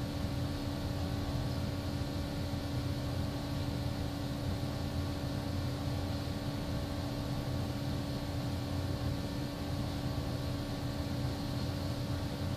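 Steady machine hum: a low rumble with a constant drone and hiss, like a fan running, unchanging throughout.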